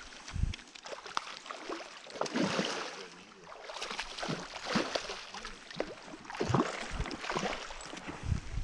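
Hooked coho (silver) salmon thrashing at the water's surface: a run of irregular splashes and slaps.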